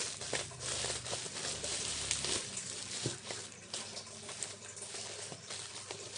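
Packaging being handled and opened: irregular rustling and crinkling with small clicks and crackles.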